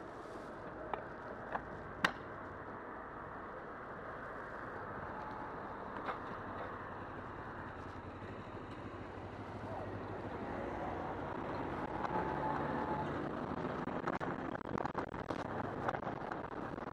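Road and traffic noise from a bicycle on a wet road: a steady rush of tyres and passing car engines that grows louder in the second half. Occasional sharp clicks early on give way to a run of crackles and clicks near the end.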